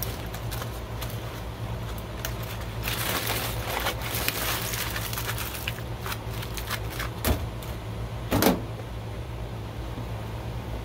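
Aluminium foil crinkling as it is peeled off a smoked pork shoulder, mostly a few seconds in, over a steady low hum. Two short knocks follow, the louder one about eight seconds in.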